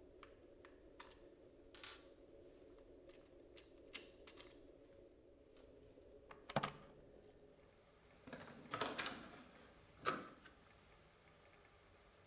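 Light clicks and taps of a Dyson V7/V8 cordless vacuum's plastic body and battery pack being handled during a battery change, with a few sharper knocks and a short scraping slide a little past the middle.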